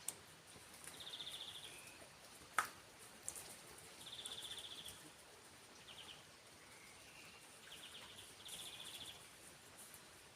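A short, high, pulsed trill from a small wild creature, repeated every two or three seconds over faint background hiss, with one sharp click about two and a half seconds in.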